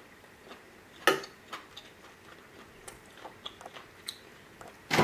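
Close-miked chewing of seafood stew: scattered wet mouth clicks and smacks, with one sharper click about a second in.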